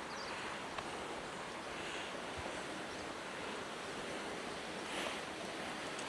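Steady rush of running water from a small mountain creek.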